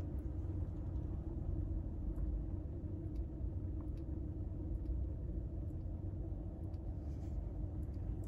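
Steady low rumble of a car engine idling, heard inside the car's cabin.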